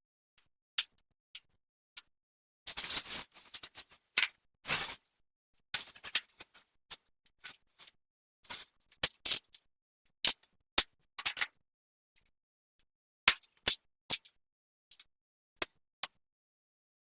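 Scattered sharp clicks and knocks, with a few short rustling, scraping stretches, from handling and fitting together the parts of a folding pop-up light box frame.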